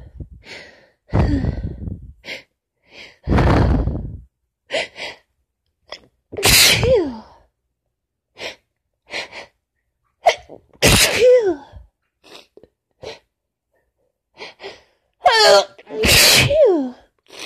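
A woman sneezing repeatedly from a cold combined with allergies: a run of strong sneezes, the loudest about six, eleven and sixteen seconds in, each ending in a voiced cry that falls in pitch. Gasping intakes of breath come between them.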